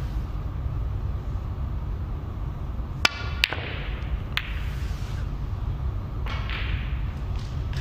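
Snooker shot: the cue strikes the cue ball and balls click against one another, three sharp clicks within about a second and a half starting about three seconds in, the first the loudest and briefly ringing. Fainter clicks of balls follow later, over a steady low arena hum.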